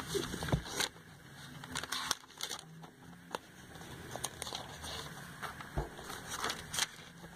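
Glossy catalogue pages being turned by hand: paper rustling with short crackles and flaps at uneven intervals as several pages are flipped.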